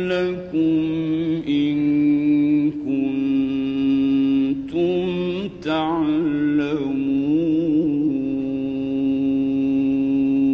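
A male Quran reciter chanting in the melodic mujawwad style. He draws out long held notes broken by short breaths, with wavering melismatic ornaments in the middle.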